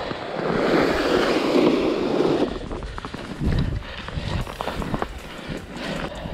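A couple of seconds of continuous crunching and scraping over snowy ice. Then come scattered knocks, clicks and rattles as a sonar transducer pole and its cable are handled at an ice-fishing sled.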